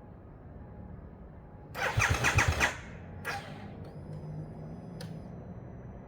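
Harley-Davidson Sportster S's 1250 cc V-twin cranking on its starter and catching, a loud pulsing burst about two seconds in, then a shorter burst a second later before it settles to a faint steady run. The battery has just been revived to get it started.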